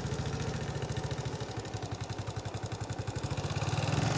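Small motorcycle engine running at low speed with a steady, rapid low throb, getting a little louder near the end.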